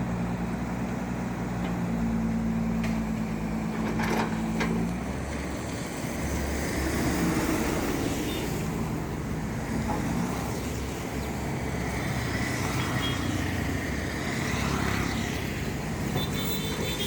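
Heavy diesel machinery engine running, with a steady hum for the first five seconds, then a rougher, noisier run mixed with road traffic.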